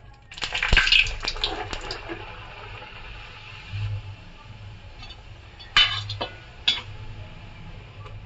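Puri deep-frying in hot oil in a metal kadai: steady sizzling, with a loud flurry of spattering and metal clatter about a second in. A perforated steel slotted spoon clinks sharply against the pan twice about six seconds in.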